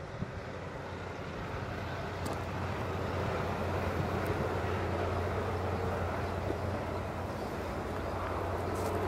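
A steady, distant engine drone with a low hum, growing a little louder over the first few seconds and then holding.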